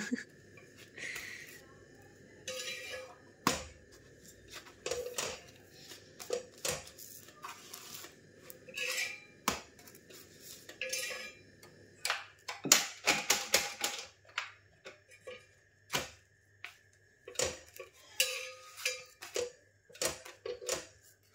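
Kitchen clatter of plates, pots and cutlery: scattered knocks, clinks and scrapes, with a quick run of clinks a little past halfway, over a faint steady hum.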